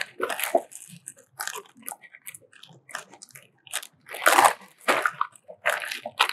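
Clear plastic bags of small parts crinkling and rustling as they are handled inside a cardboard box. The crinkling comes in irregular bursts, loudest about four seconds in and again near the end.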